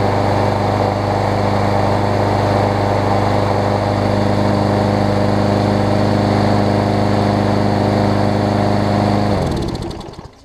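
Briggs & Stratton Quantum engine on a Troy-Bilt push mower running steadily at a constant speed, running all right now that, as the owner thinks, a little water has been purged from the carburettor bowl. About nine seconds in it stops, its pitch falling as it winds down over about a second.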